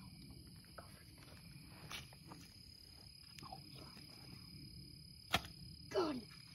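Steady high chirring of night insects, with a few faint rustles; about five seconds in, one sharp thwack as a frog gig is jabbed down to spear a frog.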